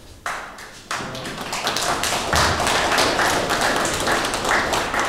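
Applause from a roomful of people, many hands clapping at once. It starts a moment in and fills out after about a second.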